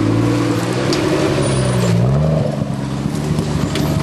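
Off-road 4x4 competition vehicle's engine pulling away under throttle at the start of a stage; its pitch dips briefly and climbs again about halfway through, then holds steady.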